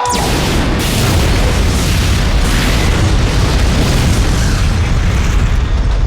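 Lab decontamination purge going off: a sudden blast that carries on as a loud, steady rush with a deep rumble, fire sweeping the sealed room.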